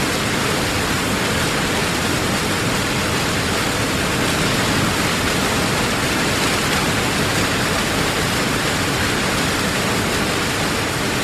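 Heavy waterfall: a dense, continuous rush of falling water, steady throughout.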